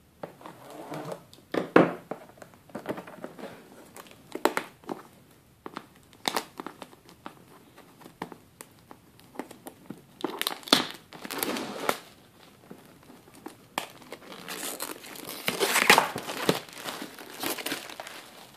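Clear plastic shrink-wrap being torn and peeled off a cardboard product box, crinkling and crackling in irregular bursts.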